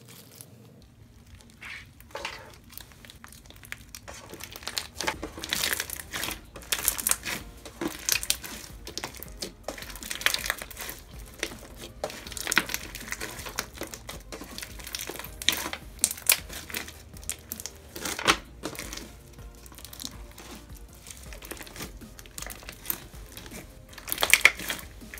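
Fishbowl-bead slime being squeezed, stretched and kneaded by hand, giving a dense run of irregular crunchy crackles and pops, busiest near the end.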